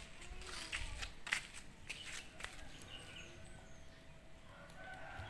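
Quiet outdoor ambience with scattered faint ticks and a few soft, distant chirps.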